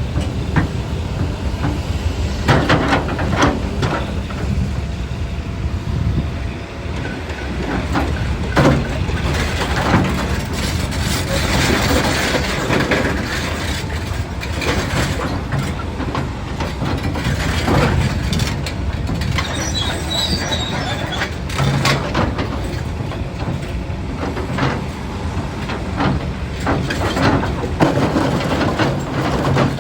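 Doosan DX390 excavator working rock: its diesel engine drones steadily under load while the bucket knocks and scrapes against boulders in repeated clanks. A brief high screech comes about twenty seconds in.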